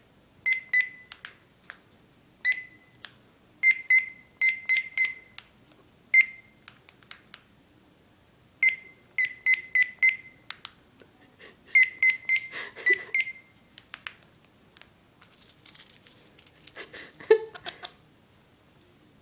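Parrot mimicking a microwave oven: short high beeps, singly and in quick runs of two to four, with sharp clicks in between.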